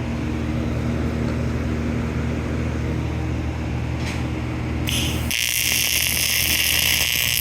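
Miller Syncrowave 350 TIG welder and its cooler running with a steady low hum; about five seconds in, the high-frequency arc start cuts in with a loud, high buzzing hiss for about two and a half seconds as the torch sparks on an aluminum plate.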